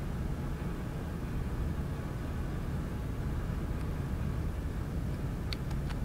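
Steady low rumbling ambience, with a few small sharp clicks near the end as a small electronic device is handled on a table.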